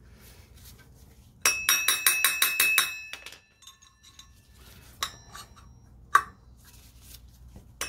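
Hammer striking a steel punch against the edge of a wheel bearing in an ATV front wheel hub, driving the bearing out: a quick run of about nine ringing metallic taps starting about a second and a half in, then two single taps, the last the loudest.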